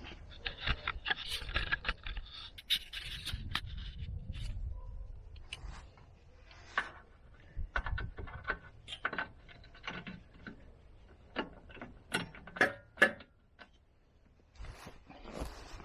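Hand tools clinking and scraping on metal suspension parts, with irregular sharp clicks and knocks throughout and a stretch of scraping in the first few seconds.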